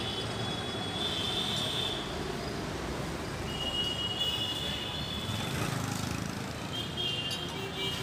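Steady city street traffic noise, with background music carrying high held notes that come and go.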